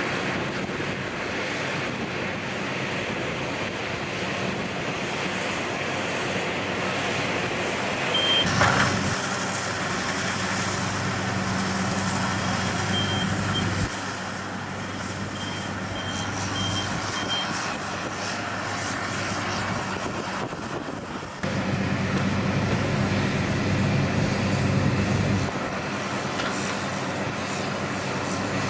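Diesel engines of heavy equipment (excavators and a Caterpillar bulldozer) running under load while pulling a mired excavator out of mud. The engine note steps up and down several times. A backup alarm beeps briefly a handful of times in the middle.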